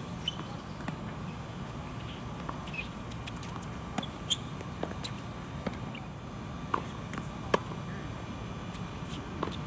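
Tennis ball sharply struck by rackets and bouncing on the court, irregular hard knocks over a steady background hiss, the loudest about three-quarters of the way through.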